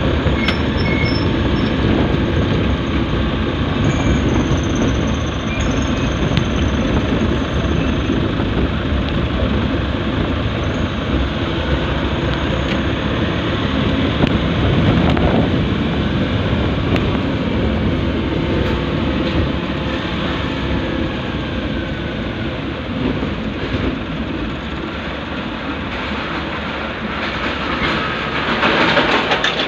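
Steady rumble of engine and road noise from a vehicle driving, heard from inside its cabin; it grows louder near the end as the vehicle draws alongside a large truck.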